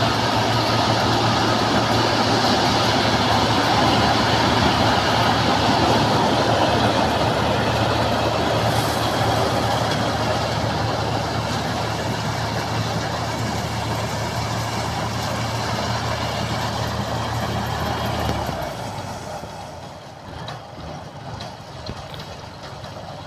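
MCH 2000 PJ Star combine harvester running steadily, its engine hum under a broad wash of machine noise. About 18 seconds in, the low engine hum drops away and the sound grows quieter.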